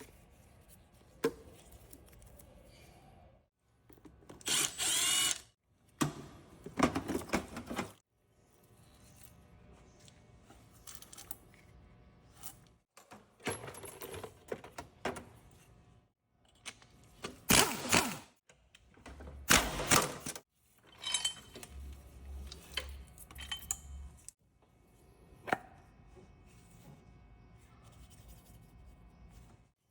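A handheld power tool, such as a drill or impact driver, runs in several short bursts of a second or so, its whine rising and falling. Quieter clinks and handling noise of tools come between the bursts.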